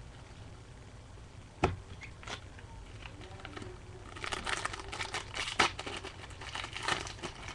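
A trading-card pack wrapper being torn open and crinkled, in a dense crackly rustle that starts a little past the middle. A single sharp tap comes about a second and a half in.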